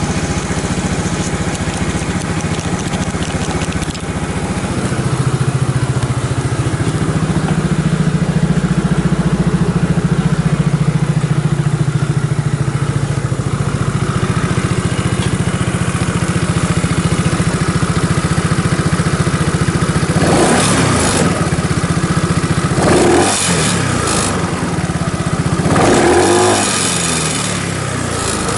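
Yamaha Cygnus X125 (SE44J) scooter's single-cylinder four-stroke engine idling steadily through an aftermarket Beams muffler, then revved briefly three times near the end, the pitch rising and falling with each blip of the throttle.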